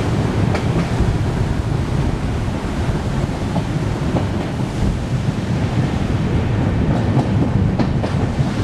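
Wind rushing over the microphone and the steady rumble of the passenger train's coaches running at speed over the rail bridge, with a few faint clicks of the wheels over the rails.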